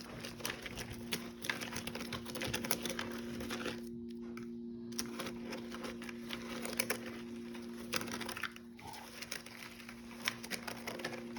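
Spoon stirring dry cereal into a sticky marshmallow mixture in a bowl: a steady run of irregular crunchy clicks and crackles, easing off twice for a moment. A steady low hum runs underneath.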